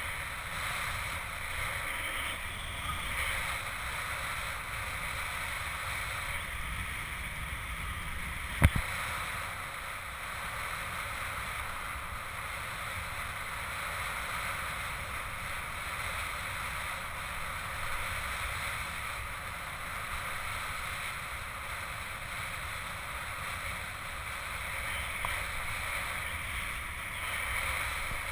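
Steady hiss of water streaming past a kitesurf hydrofoil board (Liquid Force Elite 12 foil) under way, with a low rumble of wind on the microphone. A single sharp click sounds about nine seconds in.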